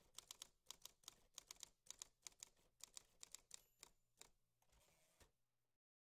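Typing sound effect: a faint, quick run of key clicks, about five a second, that stops about four seconds in. A short, softer scraping sound follows before the audio cuts off.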